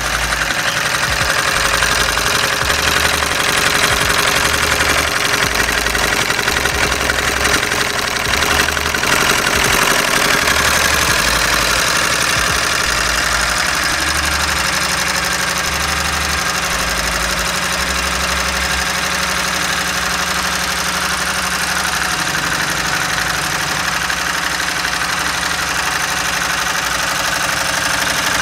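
Homemade Stirling engine built on a 100cc four-stroke dirt-bike cylinder, just fired up and running with a steady, loud hissing noise and uneven low thuds.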